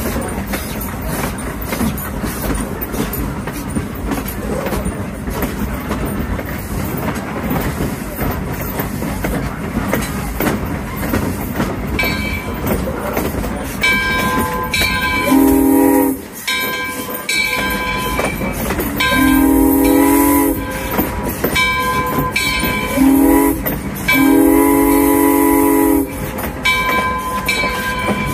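Train rolling along with steady wheel rumble and rail clatter. Over the second half a bell rings repeatedly, and the steam whistle of Alco #18 sounds four blasts: short, long, short, long.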